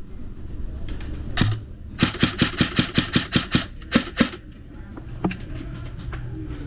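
Airsoft gunfire: a rapid string of about a dozen sharp shots at roughly seven a second, followed by two more single shots.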